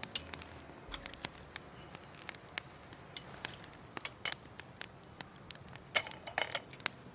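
Wood campfire crackling, with irregular sharp snaps and a quick cluster of them about six seconds in.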